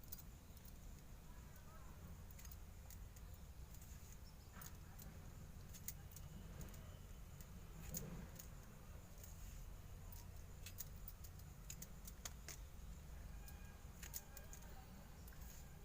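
Faint, scattered light clicks and taps of kitchen utensils over a low steady hum, with a slightly louder knock about halfway through.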